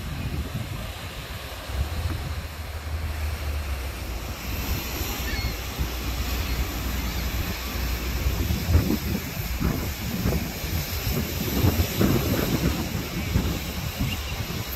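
Lake Michigan surf breaking on a sandy beach, with wind buffeting the microphone in uneven gusts.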